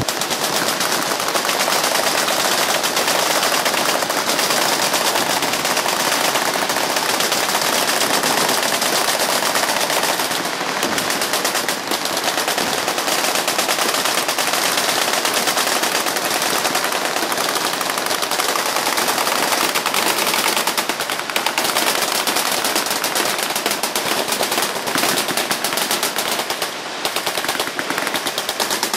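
Continuous, rapid automatic fire from machine guns on a firing line, shots packed so closely they run together into one unbroken loud crackle, easing only briefly a few times.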